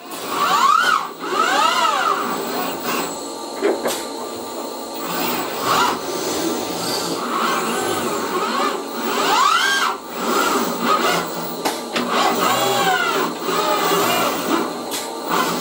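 Six-axis industrial robot arm's servo motors and gearboxes whining as it swings rapidly between stations. The whine rises and falls in pitch with each acceleration and stop, with a few sharp clicks.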